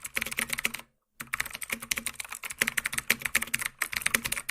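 Fast, irregular clicking, several sharp clicks a second, with a brief dead silence about a second in.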